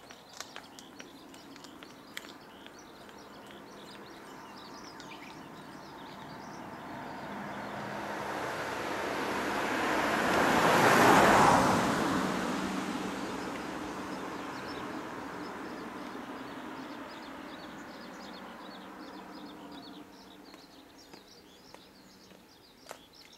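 A car driving up the road, growing louder for about ten seconds, passing close about eleven seconds in with engine and tyre noise, then fading away. Birds chirp faintly at the start and near the end.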